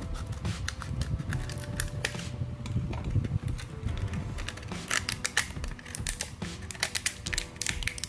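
Thin plastic water bottle crackling and clicking as it is cut with scissors and then handled and squeezed, with a cluster of sharper crinkles about five seconds in. Quiet music plays underneath.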